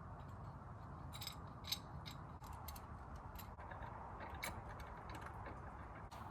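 Irregular sharp clicks and ticks over a steady low background hum, clustered about a second in and scattered through the rest.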